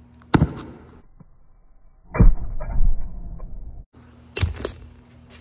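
Flint striker scraped at the tip of an oxy-acetylene rosebud torch, and the acetylene catching with a loud rushing burst of flame that lasts about a second and a half. Another sharp striker-like scrape comes near the end.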